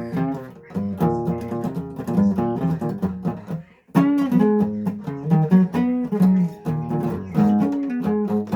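Acoustic guitar played in strummed chords, with a short break just before four seconds in before the chords start again.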